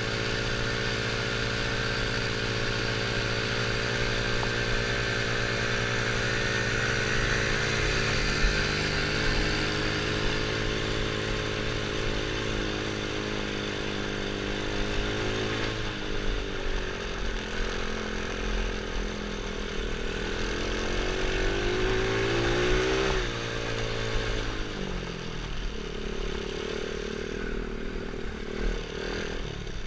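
Small single-cylinder engine of a 110cc quad running under way on a gravel road, heard from the rider's helmet. It runs steadily, climbs in pitch over several seconds about two-thirds of the way through, then drops and eases off as the quad slows near the end.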